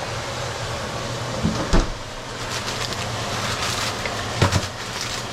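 Steady kitchen hiss at the stove, with two sharp knocks of cookware, one about two seconds in and one near the end.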